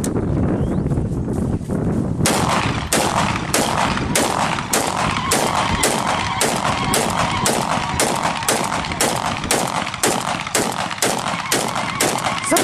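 Kalashnikov-type assault rifles fired into the air one shot at a time in a steady run of about three shots a second, starting about two seconds in: a gun salute.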